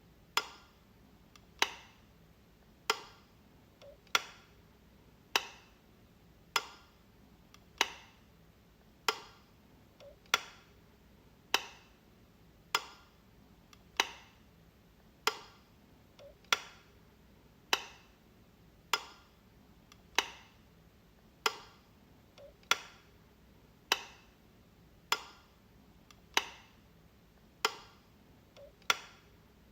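Light switch being flicked over and over: a sharp click about every second and a quarter, evenly spaced, with a faint softer click just before some of them.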